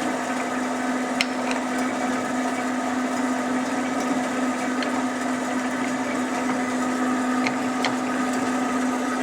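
Marvel Model 8 Mark I vertical band saw running with its power feed engaged: a steady machine hum with one constant tone, and a few faint clicks.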